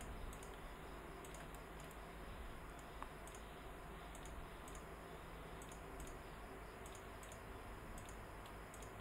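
Faint, irregular clicks of a computer mouse and keyboard keys, some in quick pairs, over a low steady hum.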